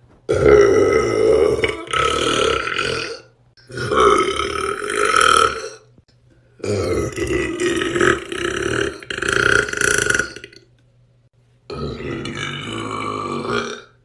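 A man burping into the phone: about four long, drawn-out burps of two to four seconds each, with short pauses between them.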